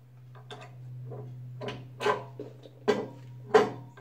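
Steel puncture fixture clicking and clinking against the machine's clevis coupling as it is fitted on by hand: about five sharp metal clicks, the loudest near the end, over a steady low hum.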